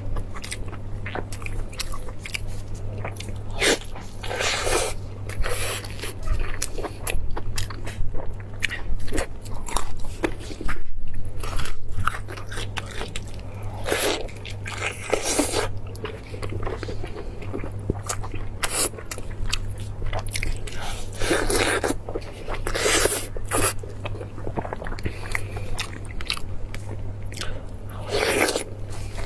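Close-miked eating of roast meat: a person biting and chewing with mouth-noise, short crunchy bites and several louder wet chewing bursts. A steady low hum runs underneath.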